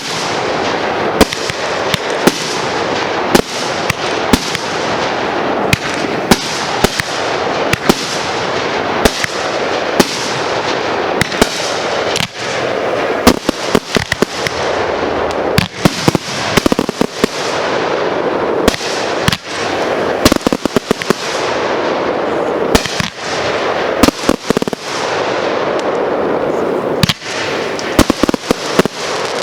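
Fireworks going off in a dense, continuous barrage: many sharp bangs, at times several a second, over a steady hiss.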